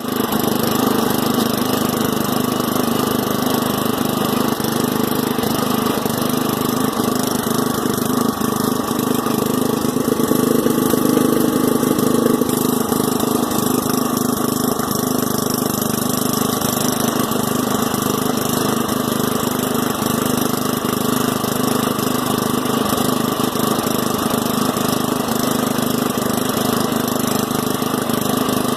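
Craftsman LT10 lawn tractor's small engine running steadily.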